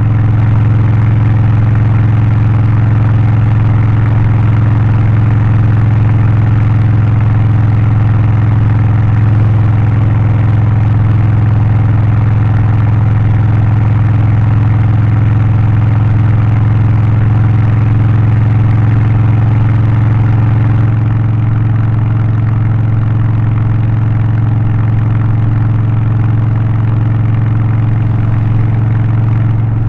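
Harley-Davidson Low Rider ST's Milwaukee-Eight 117 V-twin, in Stage 1 tune with a free-flowing exhaust, air filter and remap, running steadily. It drops a little in level about two-thirds of the way through.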